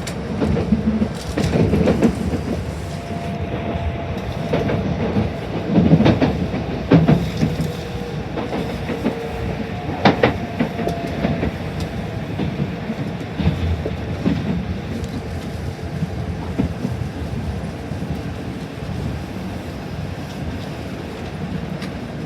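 Tokaido Shinkansen train running, heard from inside the car: wheels clacking irregularly over rail joints and points, with a faint wheel squeal in the first half. It settles into a steadier rumble in the second half.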